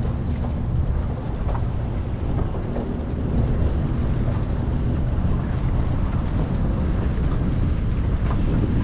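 Strong wind buffeting the microphone: a steady, uneven low rumble.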